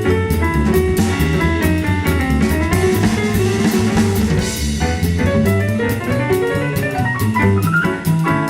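Band music with a steady drum-kit beat and guitar, an instrumental stretch without singing.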